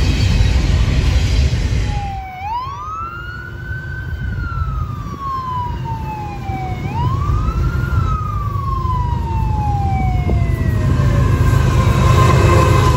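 An emergency vehicle's siren wails in two slow rise-and-fall cycles over the low rumble of passing freight trains. Near the end the rumble of an approaching diesel freight train grows louder as the siren fades.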